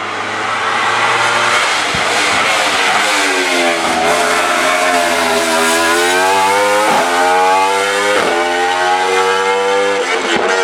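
Hill-climb race car engine under hard acceleration: the engine note dips low, then climbs steadily, with two quick upshifts about seven and eight seconds in, rising again after each.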